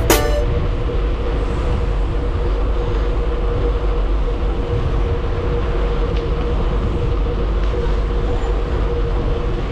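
Steady vehicle riding noise, a low rumble with a steady hum under it. A burst of music cuts off within the first half-second.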